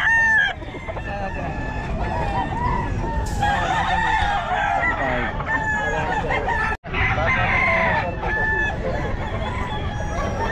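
Many roosters crowing at once, their calls overlapping one another, with a momentary dropout about two-thirds of the way through.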